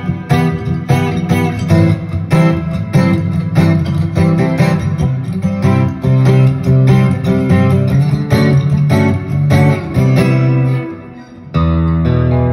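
Taylor 914CE acoustic guitar strummed in a steady rhythmic riff of ringing chords, about two or three strokes a second. Near the end the playing drops away briefly, then a fresh chord rings out and sustains.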